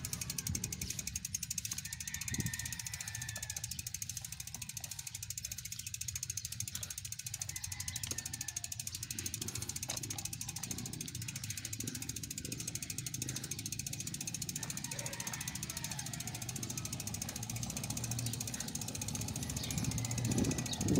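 Bicycle freewheel ratchet ticking rapidly and steadily as the rider coasts, over a low rumble of tyres on the road. A louder rushing noise builds near the end.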